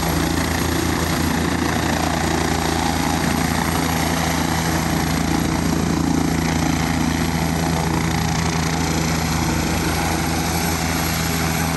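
Air ambulance helicopter hovering low, its rotor blades and engines running steadily.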